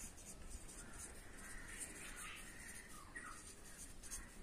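Felt-tip marker scratching across paper as a word is written, faint and in short strokes, with birds calling now and then in the background.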